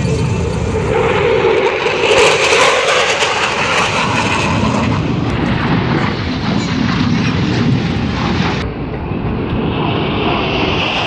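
USAF Thunderbirds F-16 fighter jet flying overhead at an airshow, its single jet engine a continuous loud roar that swells to its loudest about two seconds in.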